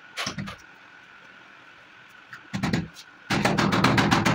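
Hammer tapping screws into a wooden door: a single knock, a few strikes, then a fast run of light taps over the last second or so.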